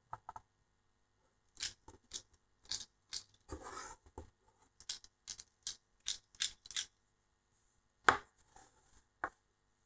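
Light clicks and taps of small parts as a small FPV drone is handled and worked on with a screwdriver on a tabletop, with a short rustle about three and a half seconds in and two sharper clicks near the end.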